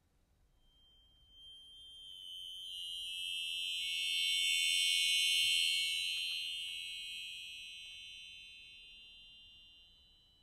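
A cluster of very high, closely spaced sustained tones played by the chamber ensemble, swelling in slowly, peaking around the middle and fading away near the end.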